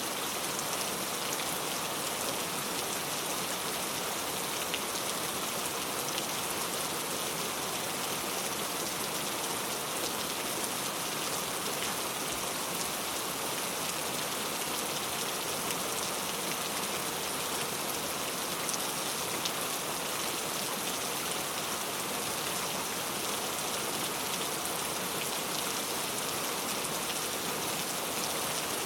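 Heavy rain falling steadily, a dense even hiss of drops with faint scattered ticks and no letup.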